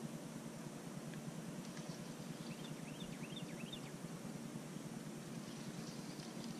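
Steady low rumble of open-air ambience on the river, with a bird giving a quick run of three chirping notes about two and a half seconds in.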